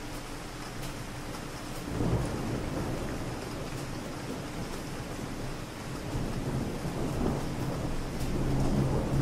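Steady city rain hissing, with distant thunder: a low rumble rolls in suddenly about two seconds in and swells again near the end.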